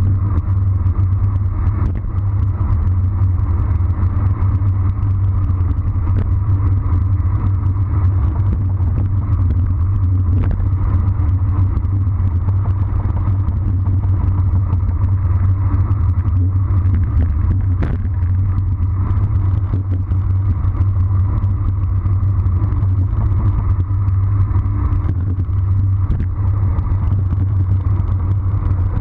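Wind rushing over the microphone of a handlebar-mounted action camera on a road bike descending at about 40 km/h, heard as a loud, steady low rumble mixed with tyre noise on the asphalt.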